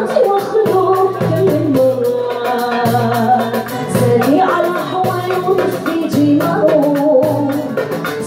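Live Algerian song: a mandole and an acoustic guitar play a rhythmic accompaniment under a singing voice, without pause.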